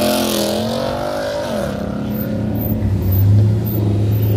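Car engine revving, its pitch falling about a second and a half in as the revs drop, then settling into a steady low exhaust rumble.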